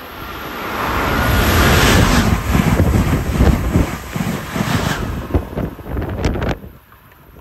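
An Amtrak Acela high-speed electric train passes close by at speed. A rush of air and rail noise swells to a peak about two seconds in, with a quick run of clicks as the cars go by, then drops away sharply near the end.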